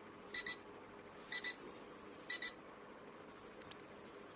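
Digital fridge thermometer's temperature alarm beeping: high-pitched double beeps about once a second, three pairs, stopping about two and a half seconds in. Two faint clicks follow near the end.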